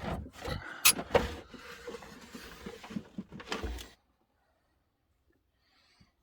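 Objects being rummaged through and handled, with two sharp knocks about a second in; the handling stops about four seconds in.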